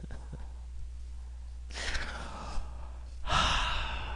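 A man sighing twice, long breathy exhales about two seconds in and again near the end, in exasperation at the chat he is reading. A steady low hum runs underneath.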